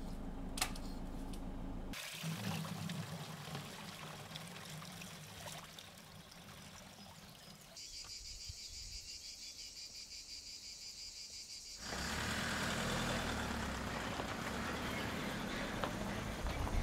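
Outdoor sound across several short clips. The first part is a low steady noise with one sharp knock about half a second in. In the middle, about four seconds of insects droning in a steady high band. The last few seconds are a truck's engine and tyres running on a rough dirt track.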